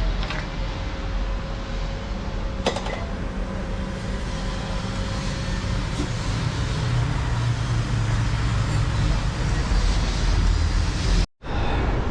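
Steady engine and traffic rumble, with a single sharp click about three seconds in; the sound cuts out abruptly for a moment near the end.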